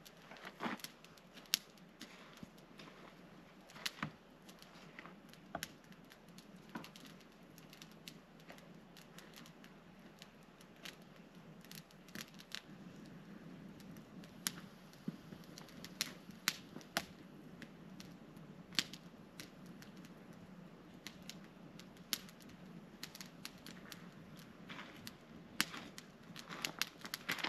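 Small wood campfire crackling, with irregular sharp snaps and pops over a faint steady low hum.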